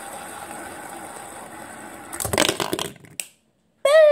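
Two stacked fidget spinners whirring steadily as they spin on a plastic water bottle, then a short clatter of knocks about two seconds in. Near the end a loud shouted "Boom!" falling in pitch.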